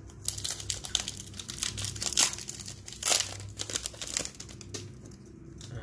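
Foil Pokémon booster pack wrapper being torn open and crinkled in the hands: a dense run of sharp crackles, loudest about two and three seconds in, dying away shortly before the end.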